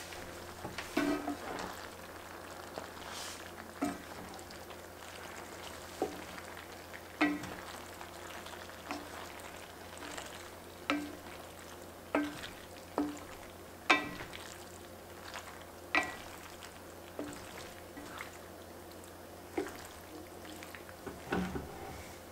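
Wooden spatula stirring pasta in an enamelled cast-iron braiser, knocking against the pan about once a second with a short metallic ring each time, over a faint steady sizzle from the pan.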